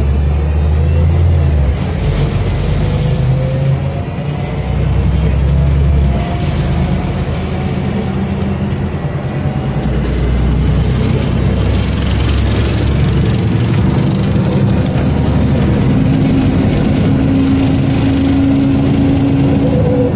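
City bus diesel engine, a Cummins ISBe, heard from inside the passenger cabin as the bus pulls away from a stop and gathers speed. A faint whine rises in pitch as it accelerates, under a steady low rumble.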